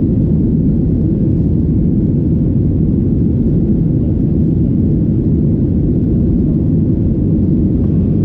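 Steady low rumble inside the cabin of a Boeing 737-800 in flight shortly after take-off: its CFM56-7B jet engines and the rush of air along the fuselage.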